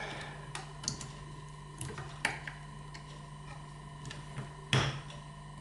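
Scattered small clicks and knocks from a screwdriver and fingers working on the metal parts and plastic housing of an opened slide projector, the loudest a single knock near the end, over a steady faint hum.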